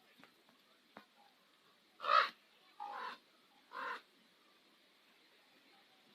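Common raven calling: three short, hoarse croaks about a second apart, the first the loudest.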